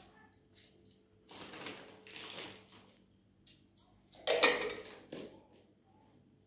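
Kitchen handling noises from a cardboard box and a metal teapot: a couple of short rustling scrapes, then a sharp metallic clatter about four seconds in, the loudest sound, with a few light clicks after it.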